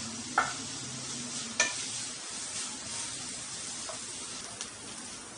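Chopped onions sizzling steadily in hot oil in a nonstick pan while a wooden spatula stirs them, being sautéed until light brown. Two sharp knocks of the spatula against the pan stand out, about half a second and a second and a half in.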